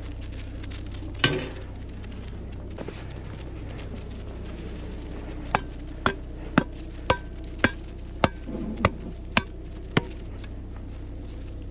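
Hot tent wood stove being emptied of its coals: one sharp knock, then a steady run of nine sharp knocks at about two a second as metal is tapped against metal to shake the coals and ash out.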